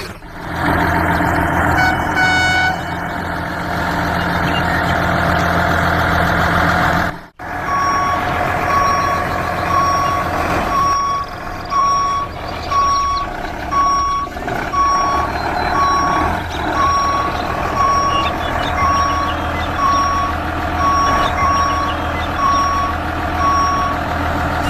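Truck engine running steadily; after about seven seconds a reversing alarm starts beeping roughly once a second over the engine and keeps on to the end.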